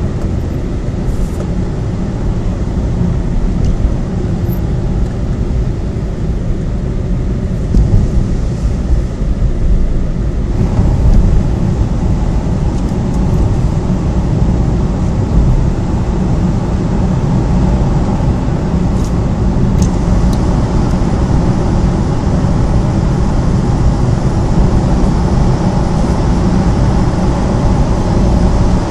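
Steady driving noise heard from inside a moving car: engine and tyre rumble. About ten seconds in it turns louder and fuller as the car drives into a roofed gallery.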